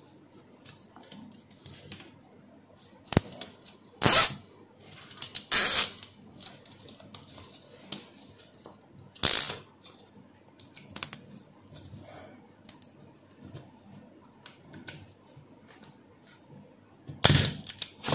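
Plastic cable tie being pulled tight around a power cord, ratcheting in several short sharp zips with handling clicks in between, and a sharp snip near the end as the tie's tail is cut off.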